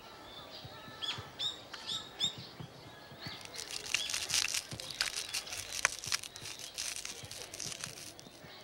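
A small bird chirps four times in quick succession. Then comes a dense crackling as food is crushed in a fist and the crumbs patter down, easing off near the end.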